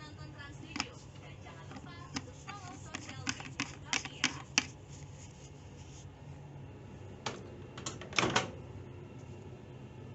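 Irregular sharp clicks and knocks of small objects being handled, bunched in two clusters, the loudest near the middle and a quick run of knocks late on, over a steady low hum.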